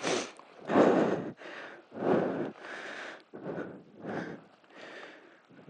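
A man breathing heavily right at a helmet-camera microphone, with loud, quick breaths in and out about once a second. He is out of breath from the hard work of hauling branches.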